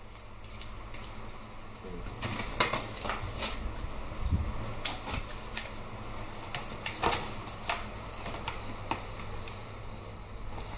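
Paper scraps and card pieces being handled and laid down on a cutting mat: irregular papery rustles and light taps, busiest from about two seconds in.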